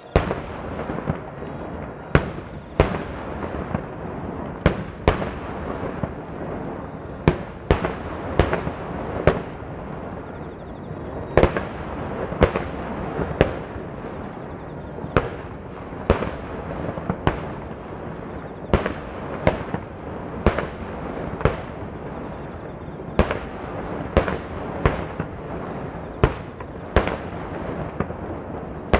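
Water-borne star mine fireworks display: shells bursting in quick succession, with sharp booms about once a second over a continuous crackle and rumble.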